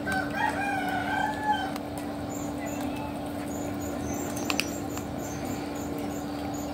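A cat's drawn-out meow in the first two seconds, over a steady hum, with a couple of soft clicks about four and a half seconds in.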